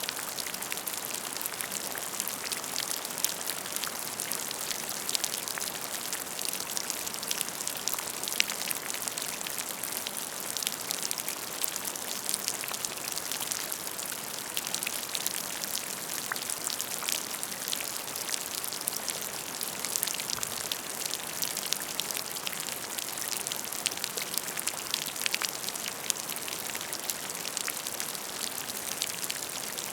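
Steady rain falling on a surface, with a dense patter of individual drop ticks.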